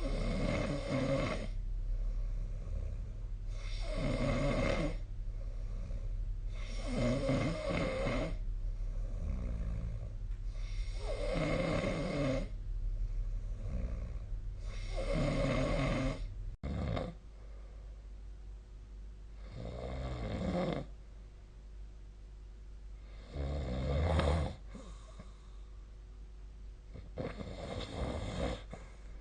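A sleeping person snoring, one snore on each breath roughly every three to four seconds, about eight in all. A sudden break about 17 seconds in changes the background hum, and the snoring carries on after it.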